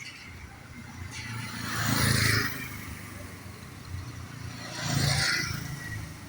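Two motor vehicles passing by one after the other, each swelling up and fading away, the first about two seconds in and the second about five seconds in.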